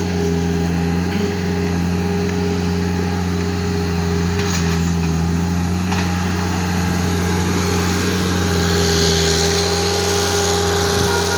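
Skid steer engine running steadily under work, with a brief rise in high-pitched hiss about eight seconds in.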